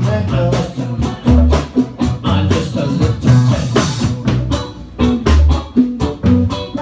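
A live rock band playing: electric bass, guitar and drums with a steady beat.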